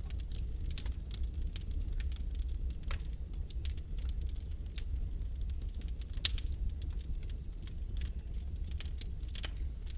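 Wood fire burning in a fireplace: logs crackling with irregular sharp pops over a steady low rumble, one louder pop about six seconds in.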